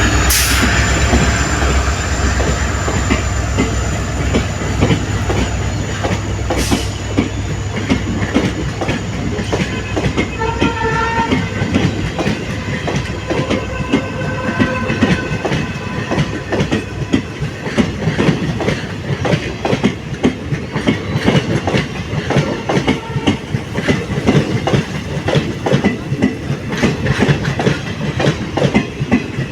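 Coaches of a departing express train rolling past, their wheels clicking rapidly over the rail joints (tadak tadak). The low rumble of the hauling WDP-4D diesel locomotive fades out over the first ten seconds or so.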